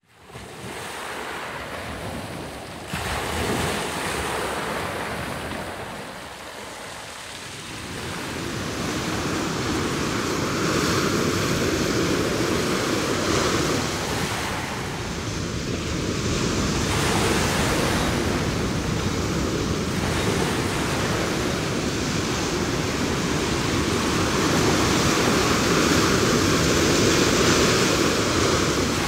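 Ocean surf: waves breaking and washing up onto the shore in a continuous rush. It fades in at the start, dips briefly, then swells louder from about eight seconds in.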